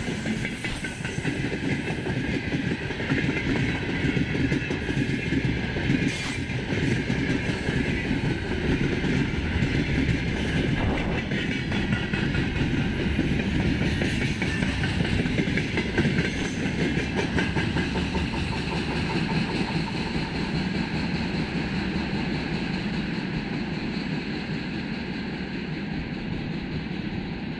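Freight train wagons passing at high speed, a steady rumble of wheels clattering on the rails. The sound thins out near the end as the tail of the train goes by.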